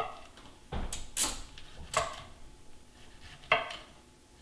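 Knife cutting a head of cauliflower into bite-sized pieces on a wooden cutting board: four separate knocks and crunches about a second apart.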